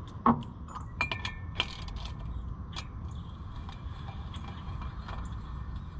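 Ratchet wrench and socket clicking and clinking on the cylinder head nuts of a golf cart engine as they are run down, a spread of irregular clicks with a sharper knock near the start.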